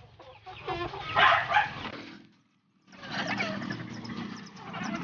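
A motor engine running steadily in the background, following a moment of silence. Before that, chickens and a voice are heard.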